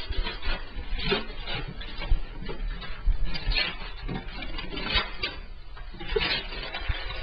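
Wrapping paper rustling and tearing in irregular bursts as a boxed present is unwrapped, with a few knocks from the cardboard box being handled.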